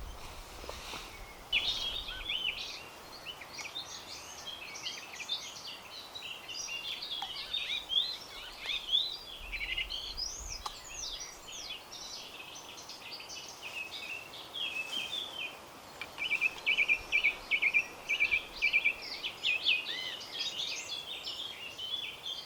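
Several songbirds singing at once: overlapping chirps, whistles and trills, with a fast run of repeated notes in the second half, over a faint steady hiss.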